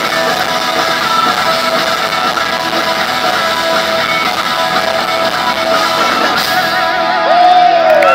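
Live rock band playing, led by electric guitars, as heard from the audience in an arena.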